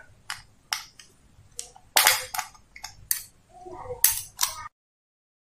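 Screwdriver clicking against the brass terminal screws of a plastic extension board as the screws are loosened to free the wires: about ten sharp, irregular clicks. The sound cuts off abruptly near the end.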